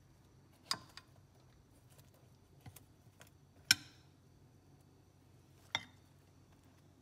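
A metal serving spoon clinking against a glass baking dish and ceramic plates as dinner rolls are served. There are three sharp clinks, the loudest in the middle, with a few fainter ticks between them.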